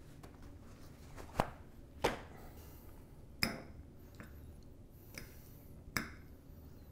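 Forks tapping on dinner plates during a meal: about five sharp, short clicks, a second or more apart, over quiet room tone.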